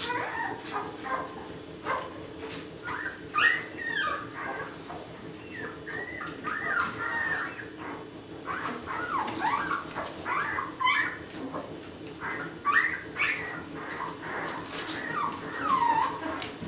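A litter of nine-day-old Labrador retriever puppies whimpering and squealing: many short, high cries that bend in pitch and overlap one another.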